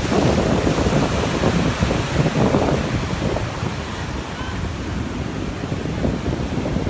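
Ocean surf breaking offshore and washing up the sand in a steady rushing wash, with wind buffeting the microphone.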